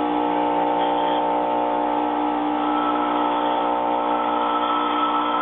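Bench grinder with an aluminum oxide wheel running with a steady motor hum and whine, while a high-speed steel lathe tool blank is held against the wheel and ground with a gritty hiss. The grinding hiss grows stronger about halfway through.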